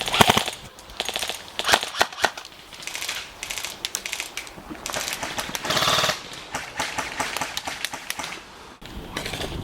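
Airsoft electric guns firing BBs: scattered single shots and short strings of rapid clicks, with a longer rapid full-auto burst about halfway through. The firing stops just before the end.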